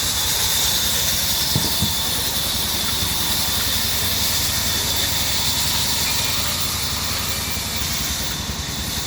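Band saw machine running steadily, a continuous mechanical noise with a strong hiss over a low rumble, and two quick clicks just under two seconds in.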